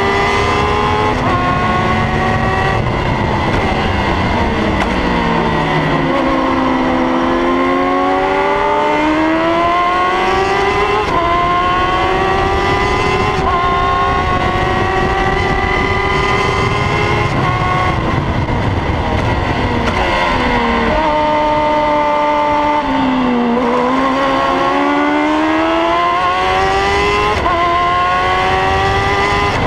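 Onboard sound of a single-seater racing car's engine at race pace, its pitch climbing through the gears with sharp breaks at each upshift. Twice the engine note sweeps down for a few seconds as the car slows, then climbs again as it pulls away.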